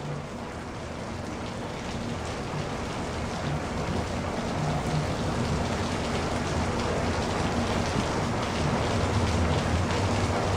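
Rain falling in a dense patter of drops, growing steadily louder, with a low rumble underneath.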